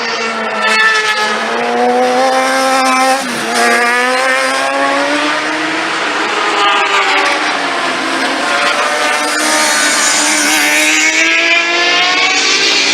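Sport motorcycle engines accelerating hard, the pitch climbing. There is a short drop at a gear change about three seconds in, then it climbs again, and another bike's rising engine note overlaps in the second half.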